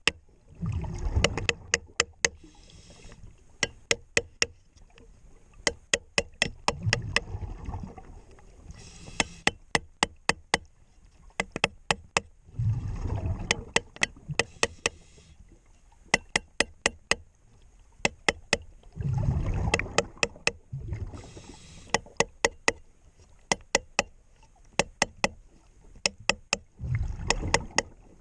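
Scuba diver breathing through a regulator underwater: a rumble of exhaled bubbles about every six seconds, each followed by a short hiss on the inhale. Between breaths come runs of sharp taps, about five a second.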